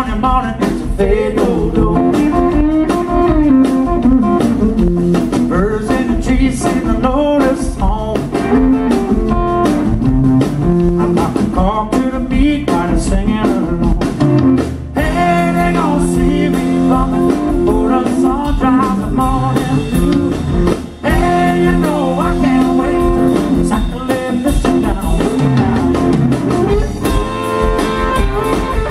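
Live blues band playing: electric guitar out front over electric bass and a drum kit, with bending, sliding guitar notes.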